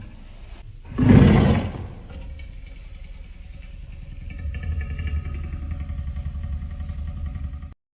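Designed dinosaur-creature sound effect: a short, loud call about a second in, then a low rumbling growl that swells after the middle and cuts off abruptly near the end.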